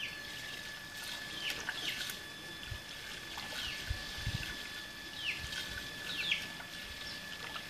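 Small birds chirping in short falling calls, with a steady thin high tone behind them, over the soft sound of a wooden spoon stirring semolina pellets into hot milk and water in an aluminium pot, with a few low bumps.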